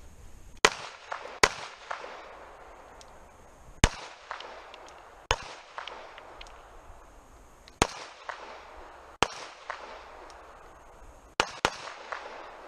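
Handgun shots fired from a seated position on an outdoor range: about eight loud, sharp shots, mostly in pairs with pauses of two or three seconds between, each trailing a short echo.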